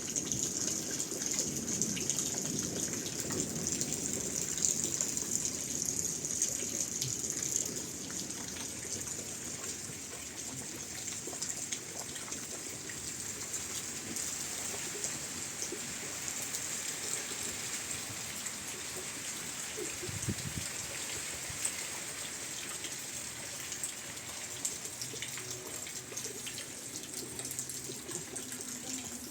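Heavy rain falling in a steady rush of water, a little louder for the first several seconds and then slightly quieter.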